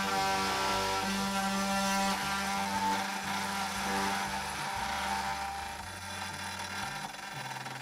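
CNC router spindle running as a 1/8-inch O-flute end mill cuts a contour in 6061 aluminium plate: a steady whine made of several tones over cutting noise, getting quieter near the end.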